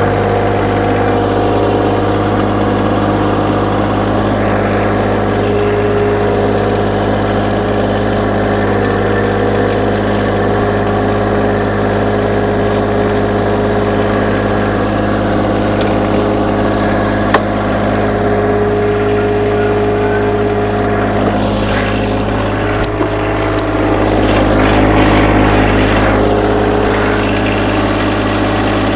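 John Deere 1025R subcompact tractor's three-cylinder diesel engine running steadily as the tractor is driven up onto a flatbed trailer. A single sharp click comes about 17 seconds in, and the engine note changes and briefly grows louder a little after 22 seconds.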